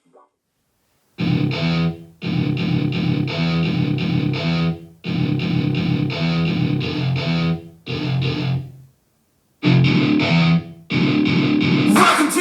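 Rock track with heavy distorted electric guitar chords, played back through a JBL Clip portable Bluetooth speaker. It starts about a second in and comes in stop-start phrases with short silent breaks, and a singing voice joins near the end.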